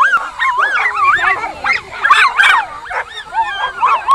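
Dogs yelping and whining excitedly: rapid high-pitched cries that swoop up and down, several overlapping at once, with no pause.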